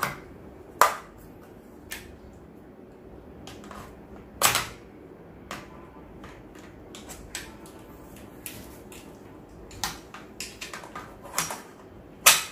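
Metal parts of a GHK AKMS gas-blowback airsoft rifle clicking and clacking as it is worked apart by hand, with sharp clacks about a second in, about four and a half seconds in and near the end, and lighter clicks between them.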